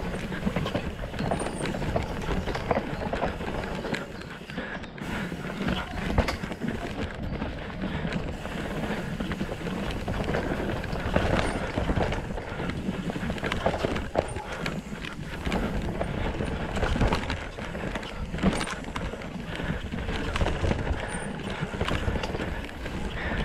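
Mountain bike descending a dirt singletrack at speed: a constant rushing of tyres and air, broken by frequent sharp clattering knocks as the bike rattles over bumps and roots.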